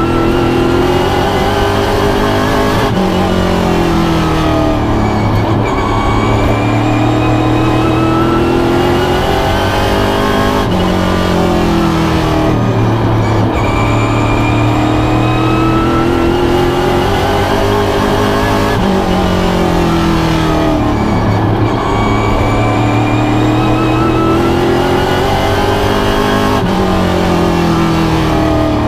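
Pro stock race car's V8 engine at racing speed, heard from inside the cockpit. Its pitch climbs and then drops again about every eight seconds, rising on each straight and falling as the car lifts for each turn.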